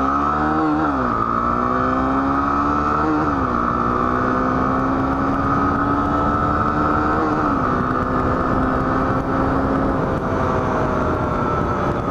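Honda Tornado XR 250's single-cylinder four-stroke engine accelerating hard through the gears: its pitch climbs and drops sharply at upshifts about one, three and a half and seven and a half seconds in, then holds fairly steady at speed.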